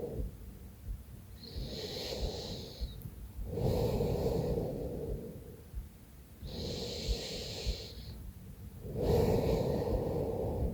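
A woman snoring in her sleep while ill: slow, rough snores a few seconds apart, with hissing breaths between them.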